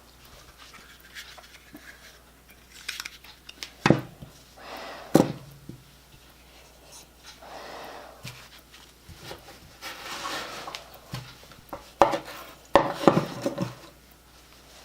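Workbench handling noises: a handful of sharp clanks and knocks of metal tools being picked up and set down, with rustling in between.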